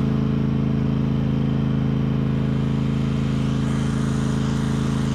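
Cub Cadet XT riding lawn tractor's engine running at a steady speed, an even drone with no change in pitch.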